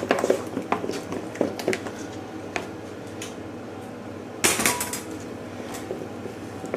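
A utensil clinking and scraping against a bowl as softened butter and raw flour are worked together into a beurre manié, with a louder, denser scrape about four and a half seconds in.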